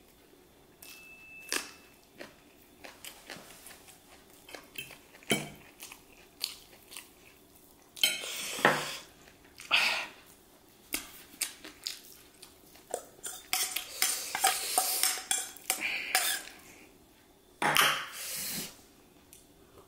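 A metal fork and a small steel bowl clinking and scraping against a plate of chow mein noodles, in many short clicks and a few longer scrapes, with some chewing.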